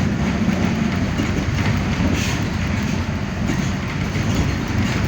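Mercedes-Benz OF-1519 Bluetec 5 city bus's diesel engine running steadily under way, heard from inside the bus, with a low drone and road noise.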